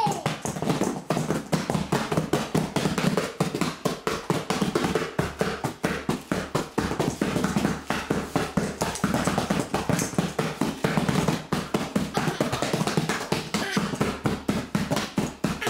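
A toddler drumming on the lid of a cardboard box with small plastic toy balls in his hands: rapid, uneven knocking that goes on without a break.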